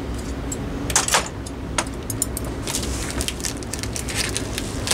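A taped shipping package being handled for opening: scattered clicks and rustles of packaging at an uneven pace, over a steady low hum.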